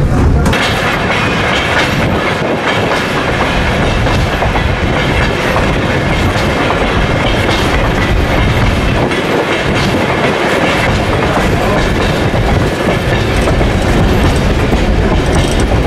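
Passenger train running along the track, a steady loud rumble with the clickety-clack of wheels over the rails.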